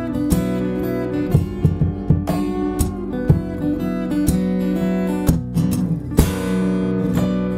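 Yamaha FGX5 acoustic guitar played fingerstyle: a picked riff over held bass notes, punctuated by sharp percussive knocks, with a full strum about six seconds in.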